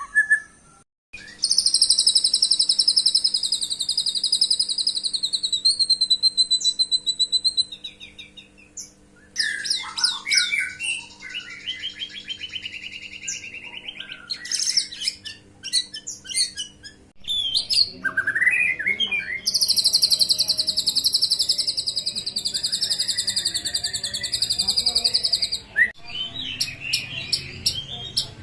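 White-rumped shama (murai batu) singing: two long, very rapid high trills of about six seconds each, one near the start and one past the middle, with shorter varied whistled and chattering phrases between them.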